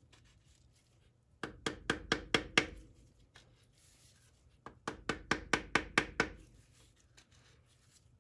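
Quick taps of a hammer on the end of an oak stick, driving a differential side seal into its bore. The taps come in two quick runs of about seven or eight each, roughly five a second. The seal is being seated to depth, the stick stopping against the flat face of the differential.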